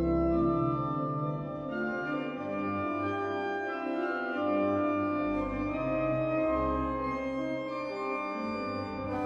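Organ music played by an organ duo: sustained chords over a shifting bass line, with a melody moving above.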